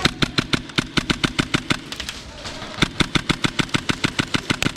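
Airsoft gun firing in two rapid runs of shots, about eight a second, with a pause of about a second between them.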